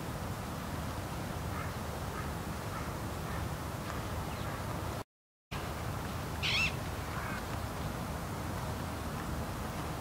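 A short, harsh bird call about six and a half seconds in, over steady outdoor background noise with a few fainter calls earlier. The sound cuts out briefly just after five seconds in.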